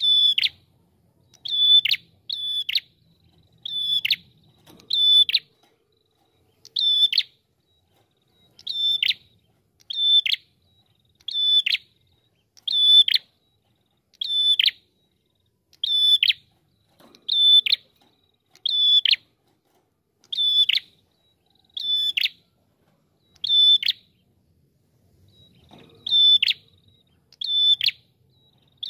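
Ashy tailorbird (prenjak kepala merah) singing one loud, short note over and over, about once a second. Each note is high and drops sharply in pitch, with a brief break a few seconds before the end.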